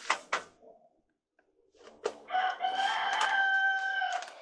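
A rooster crowing: one long call of about two seconds on a steady pitch, starting about two seconds in. Two short clicks come just at the start.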